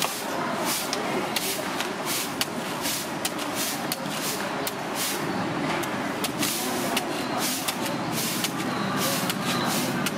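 Knife shaving the soft husk off a young coconut on a wooden chopping block: quick cutting strokes, about two or three a second, over steady background noise.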